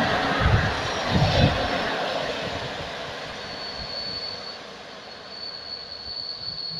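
Passenger train carriages rolling past on the track, a loud rumble with a few low thumps that fades as the train draws away. From about halfway, a thin high steady squeal of the wheels on the rails.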